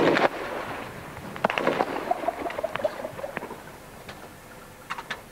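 Scattered gunfire at night: sharp single shots and short bursts a second or so apart, loudest in a cluster at the start, with a pair of shots near the end.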